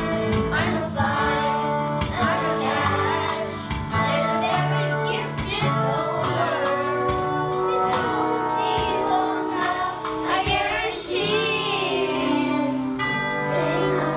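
A group of children singing a show tune together over instrumental accompaniment with long held notes.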